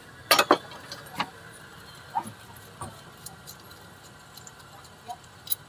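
Sharp metallic clicks and clinks of a hand wrench on the 10 mm bracket bolt that holds the small water pump pipe, as the bolt is worked loose. Two loud clicks come just after the start, one more about a second in, then a few fainter clinks, with another near the end.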